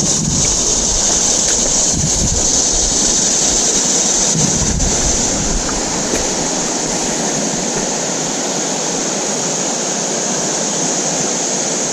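Steady rushing of river water, with a low rumble of wind on the microphone coming and going in the first half.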